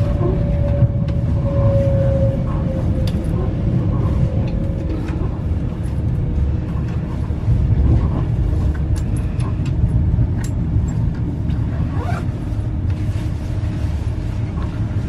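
Passenger train running, heard from inside the carriage: a steady low rumble of wheels on the track. A faint whine falls slightly in pitch over the first few seconds, and a few light clicks come through later on.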